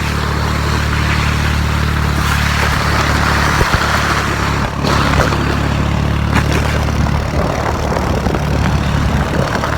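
Four-wheeler (ATV) engine running at a steady speed, with a steady hiss over it and a few faint clicks.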